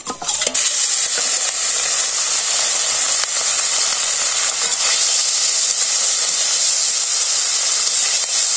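Food sizzling in hot oil in a pan, a steady loud hiss that settles in after a couple of clicks in the first half-second.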